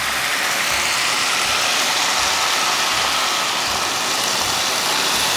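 Steady sizzling hiss as water is poured from a glass into a hot pan of pork on a gas burner.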